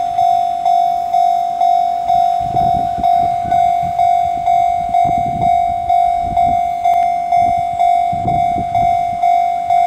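Japanese railway level-crossing warning bell ringing: an electronic ding on one steady pitch, repeating about twice a second, the signal that the crossing is closed. From about two seconds in, a low rumbling noise comes and goes beneath it.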